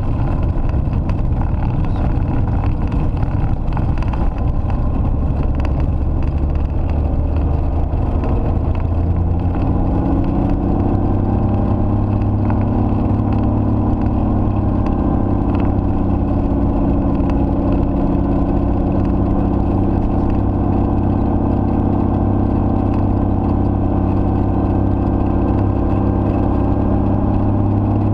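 Helio Courier's geared six-cylinder Lycoming engine and propeller running at low power as the plane taxis on a dirt strip, heard from inside the cockpit. The sound is rougher for the first ten seconds or so, then settles into a steady, slightly higher hum.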